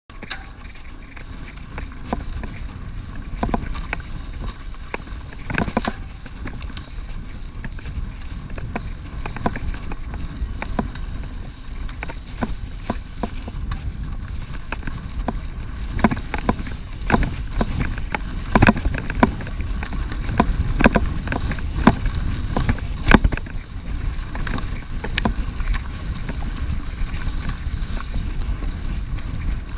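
Mountain bike ridden fast over a dirt forest trail, heard from a camera mounted on the bike or rider: a steady low rumble of wind and tyres, broken by frequent sharp rattles and knocks from the bike jolting over bumps, thickest past the middle.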